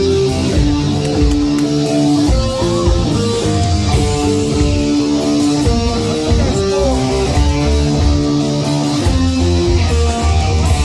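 Live heavy metal band playing loud: electric guitars hold sustained notes that change every half second or so over a heavy bass low end, with a few short bent notes.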